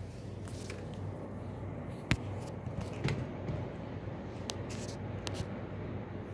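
Handling noise from a phone being moved against clothing: fabric rubbing and scraping on the microphone, with a few sharp clicks, the loudest about two seconds in, over a steady low hum.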